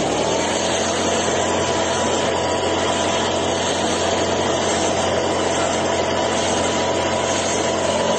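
A motor or engine running steadily: a high whine over a low hum and a hiss, the whine rising slightly in pitch at the start.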